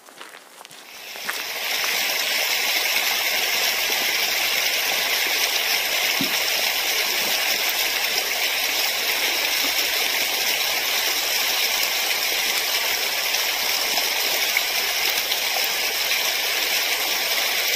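Small waterfall spilling down a rock face: a steady, loud rush of splashing water that swells in over the first two seconds, then holds.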